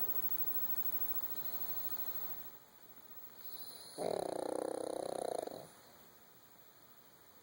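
Sleeping puppy snoring: quiet breathing, then one loud, pitched, wavering snore lasting about a second and a half, a little past halfway through.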